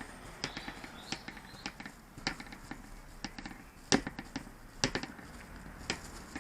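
Irregular small clicks and taps of hands handling plastic parts and tools at a workbench, with two louder knocks around the middle.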